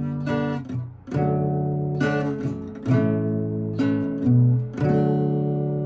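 Acoustic guitar with a capo, strummed slowly in a chord progression, about one strum a second, the last chord left ringing near the end.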